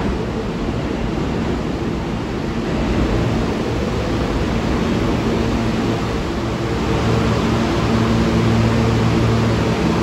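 New York City subway train noise: a steady rumble and hiss, with a low hum that grows louder about seven seconds in.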